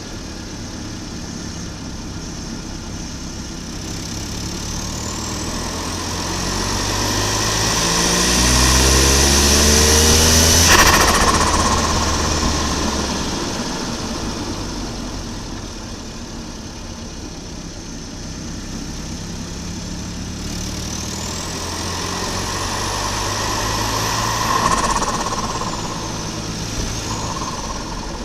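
Volvo 940 Turbo's B230FT turbocharged four-cylinder pulling hard, its pitch and a turbo whistle rising together, then a sudden throttle lift about eleven seconds in that cuts the whistle off with turbo flutter (compressor surge). A second, shorter pull with rising turbo whistle follows from about twenty seconds and ends in another lift off the throttle.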